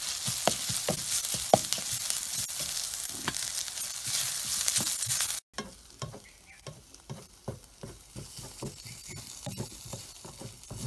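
Chopped onions, green chillies and freshly added crushed ginger and garlic sizzling in oil in a steel kadai, stirred with a wooden spatula that clicks and scrapes against the pan. About five seconds in the sizzle cuts off abruptly, leaving fainter scattered clicks and knocks.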